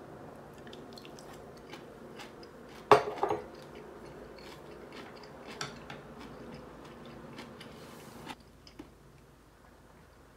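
A small porcelain dish and wooden chopsticks set down on a table, with one sharp clack about three seconds in, followed by soft chewing of a mouthful of boiled mitsuba greens with small mouth clicks.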